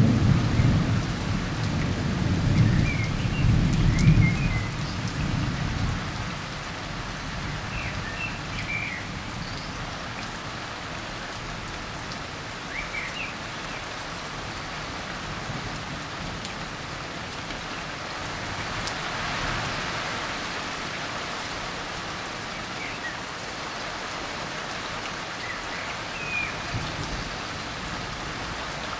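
Steady heavy rain shower falling. A low rumble sits under it for the first six seconds, then fades out.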